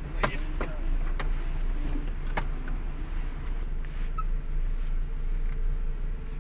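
Car engine idling steadily, heard from inside the cabin, with a few light clicks and knocks in the first two and a half seconds.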